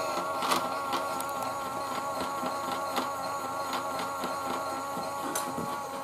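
Toy Miele W1 front-loading washing machine spinning its drum: a small electric motor whining steadily, its pitch wavering slightly, with occasional clicks. It is struggling to spin up against an unbalanced load.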